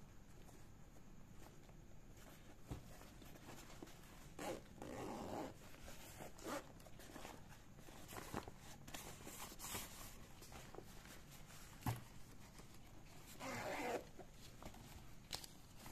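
Zipper of a nylon Eiger Clutch 1.0 waist bag being pulled, in two drawn-out runs, one about four seconds in and one near the end, with fabric rustling and a sharp click a little before the second run.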